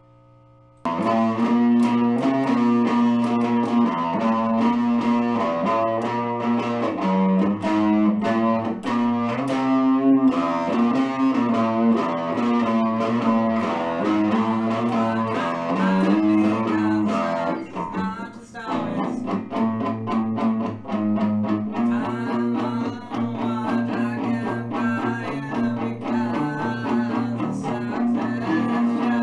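Guitar music, cutting in abruptly about a second in over a faint held tone, then running loud and dense with a brief dip about two-thirds of the way through.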